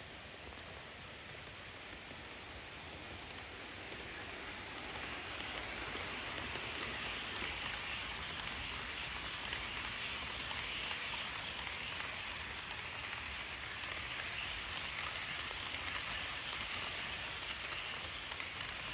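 HO scale model freight train's wheels rolling over the track, a steady fine rattle that grows louder from about four seconds in as the cars pass close by.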